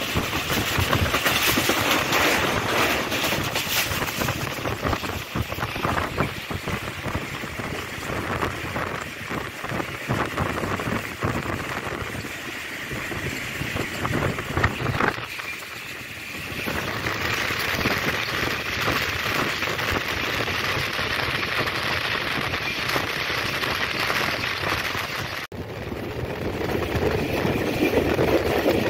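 Passenger train running along the track at speed, heard from on board: a continuous rush of wind and wheel noise with a patter of small rattles and clicks, briefly easing about halfway through and cutting out for an instant near the end.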